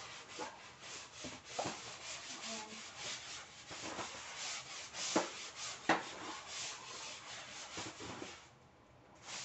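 Scrub brush scrubbing a kitchen floor by hand in quick, repeated back-and-forth strokes, with two sharper knocks a little past halfway. The scrubbing stops about a second before the end.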